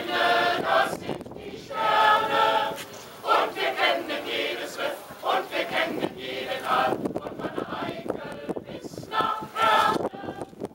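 Mixed choir of men's and women's voices singing a song together in phrases, with short breaths between lines.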